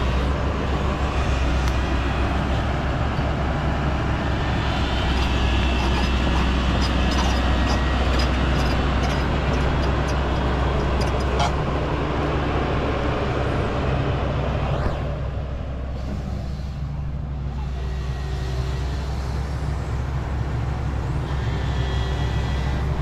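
XCMG XE210 crawler excavator's diesel engine running steadily under load, with a run of sharp clanks from its steel tracks as it travels. The sound drops and changes about fifteen seconds in.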